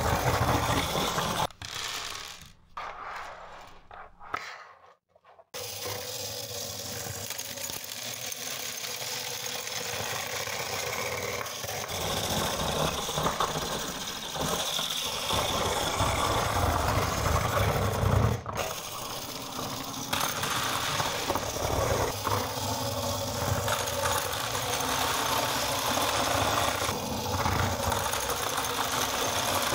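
Small battery motor and gear train of a Meccano model lawn mower running, a steady buzzing rattle. It comes in short broken bursts for the first few seconds, then runs on without a break.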